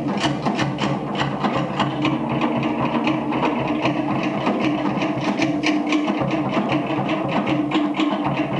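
Live Tahitian dance drumming: a fast, even run of sharp beats, about seven a second, over a steady low held tone.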